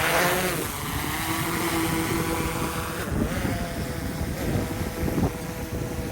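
DJI Mavic 3 drone's propellers humming, their pitch swinging near the start and then holding steady, with gusty wind rumbling on the microphone.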